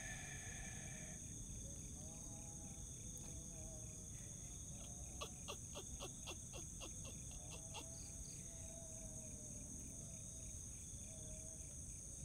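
Night insects, crickets chirping steadily, with one cricket trilling in fast even pulses. About five seconds in comes a quick run of roughly a dozen sharp clicks lasting two to three seconds, over a faint low hiss.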